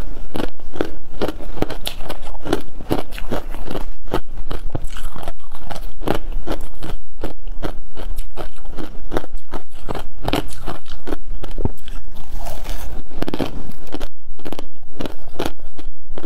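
Close-miked crunching and chewing of a mouthful of refrozen freezer frost: a steady run of crisp crunches, a few a second.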